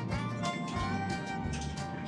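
Instrumental background music with a steady beat and a moving bass line.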